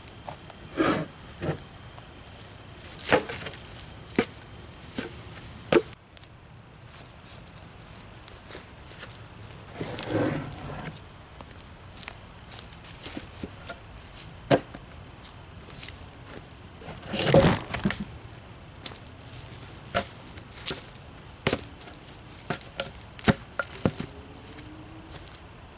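Irregular wooden knocks and clatter of rough-sawn pine boards being handled and set down, with a louder clatter about two-thirds of the way through. A steady high-pitched insect buzz runs underneath.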